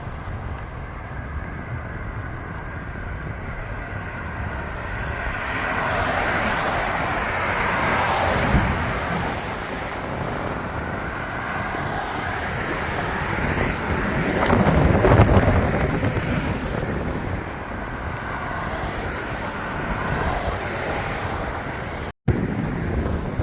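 Outdoor wind rumble on the microphone mixed with road traffic, with two louder swells of passing vehicles, about eight seconds in and again, louder, around fifteen seconds in. The sound drops out for a moment near the end.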